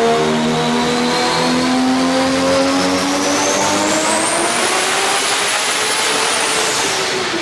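Nissan Skyline R34 GT-R's twin-turbo RB26DETT straight-six on a chassis dyno pull, its revs climbing steadily under load with a high whine rising alongside. Near the end the whine and then the revs drop away as the pull ends.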